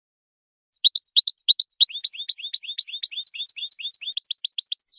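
European goldfinch singing: a fast, tumbling phrase of high twittering notes that starts about a second in and ends in a quick run of short repeated notes and a falling note.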